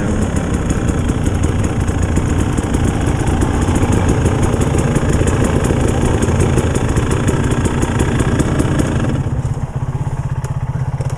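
Dirt bike engine running at low speed. About nine seconds in it settles into a steady idle, and it cuts out right at the end.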